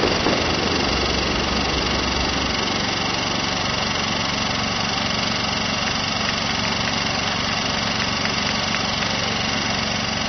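An engine running steadily at idle, with a low, even pulse.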